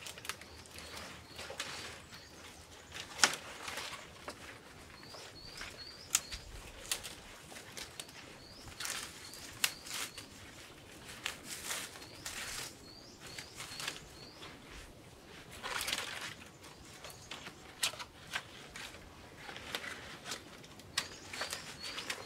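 Leafy branches rustling and twigs snapping sharply now and then as they are pushed and woven into a stick frame by hand. A small bird chirps in the background in short runs of quick rising notes, repeated several times.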